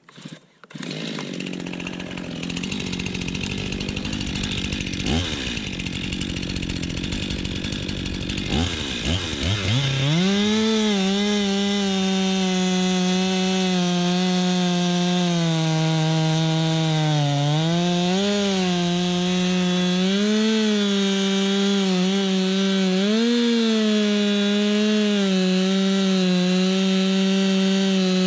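Stihl MS 261 two-stroke chainsaw running. About ten seconds in it revs up to full throttle and holds there, its pitch dipping briefly a few times under the load of cutting wood.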